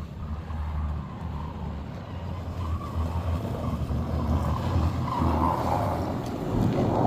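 A vehicle driving: a steady low engine drone with road and wind noise, growing somewhat louder in the second half.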